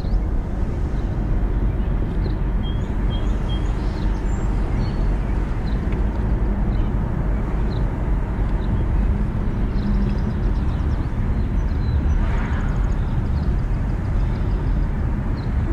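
Car driving, heard from inside the cabin: steady low rumble of engine and tyre road noise.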